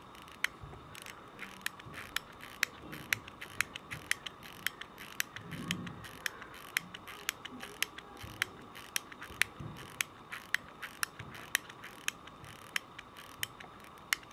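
Vintage Citizen pocket watch being wound at the crown: the ratchet click snapping over the winding wheel in a long run of sharp clicks, about two to three a second and unevenly spaced.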